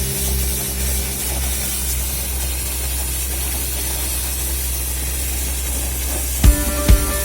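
Steady hiss of dry-process shotcrete spraying, compressed air carrying dry concrete mix out of the nozzle. About six and a half seconds in, music with a heavy beat starts over it.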